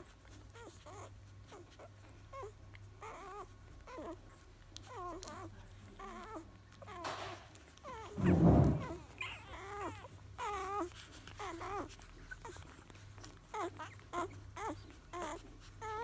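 Five-day-old Cobberdog puppies squeaking and whimpering in many short, wavering calls, increasingly frequent in the second half. A loud low thump about halfway through.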